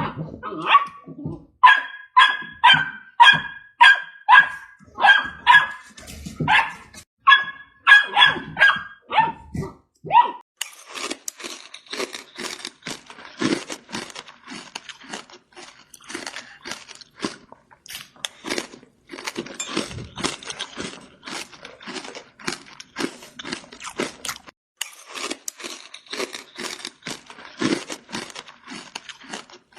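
A puppy yapping in short, high, repeated barks, about two a second. About ten seconds in the barking stops and gives way to a dense run of quick crunching clicks.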